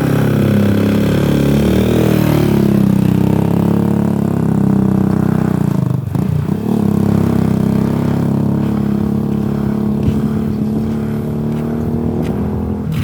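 Small engine running steadily at moderate speed, with a brief drop in pitch and level about six seconds in.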